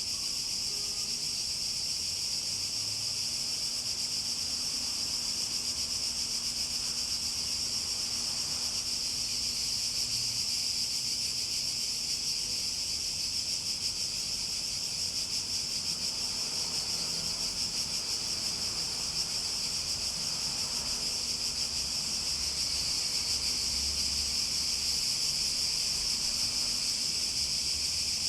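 Cicadas in a steady chorus: an even, high buzzing drone with no breaks, growing slightly louder near the end.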